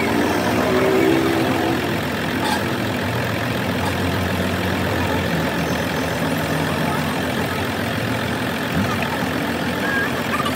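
A heavy engine idling steadily, with a single faint click about two and a half seconds in.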